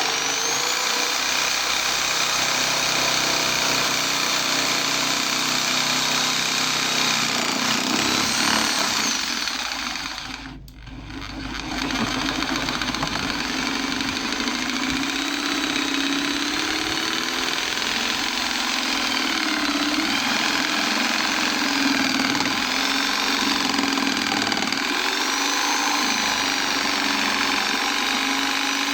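TOTAL 400 W corded electric jigsaw (model TS204556) sawing through a piece of wood along a curve, the blade running continuously with a pitch that wavers as it works through the cut. It drops away briefly about ten seconds in, then runs again.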